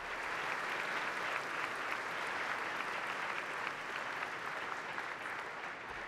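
Audience applauding: a dense, steady clatter of many hands clapping that eases off slightly near the end.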